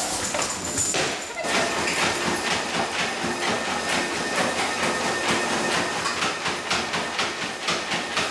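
Motorized treadmill running with a dog trotting on its belt: a quick, even rhythm of paw falls and claw clicks over the steady hum and hiss of the motor and belt.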